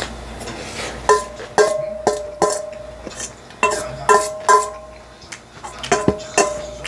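A metal utensil clinking and scraping against a stainless steel bowl as bibimbap is mixed. Each strike rings briefly, and they come in three quick clusters of three or four strikes.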